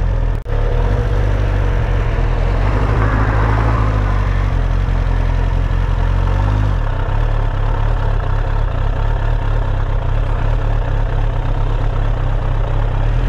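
Suzuki Bandit 1200's inline-four engine running at low speed, heard close from the handlebars. There is a brief dropout about half a second in, and the engine note changes about halfway through.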